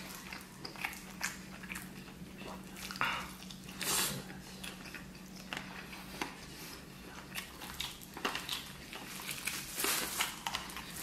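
Close-up mouth sounds of a man eating stewed lamb off the bone: irregular wet chewing and smacking, with a few longer sucking or slurping sounds.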